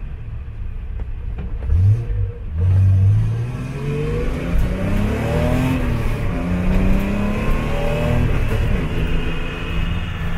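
Datsun 240Z race car's engine heard from inside the cabin, accelerating hard, its pitch climbing through the revs. It drops briefly at a gear change about six seconds in, climbs again, then holds a steady pitch near the end.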